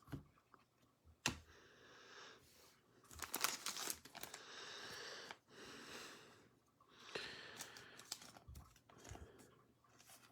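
Faint rustling and crinkling of plastic card sleeves being handled, in several bursts, with a sharp click about a second in.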